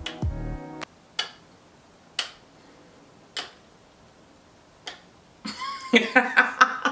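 Four light, separate clicks of a small refrigerator magnet tapped against a metal Louis Vuitton Nanogram phone ring holder, which it does not grip: the ring is not magnetic. Background music stops about a second in, and a voice comes in near the end.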